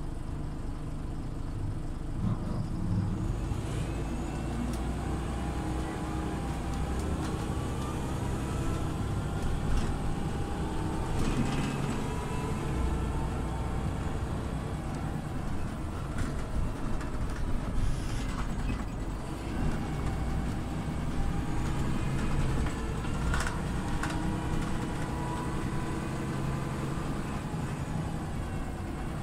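Scania OmniLink CL94UB city bus on the move: the engine runs steadily with a whine that rises and falls as the bus speeds up and slows. A few knocks and rattles come through, around the middle and again later.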